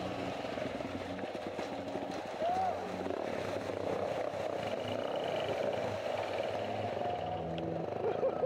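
Yamaha XT250 Serow's air-cooled single-cylinder engine running on a dirt-trail ride, with rushing wind noise and background music of held low notes that step from pitch to pitch.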